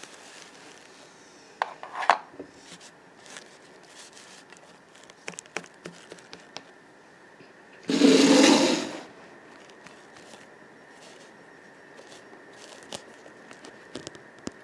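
Small plastic Littlest Pet Shop figures being handled on a toy set: scattered light taps and rubbing. About eight seconds in comes a loud rubbing rush lasting about a second as the camera is swung across the set.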